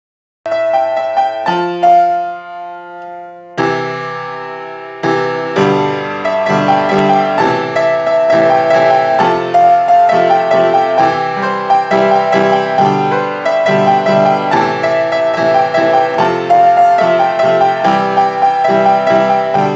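Background piano music: a few held notes at first, then a busier, steady run of chords and melody from about five seconds in.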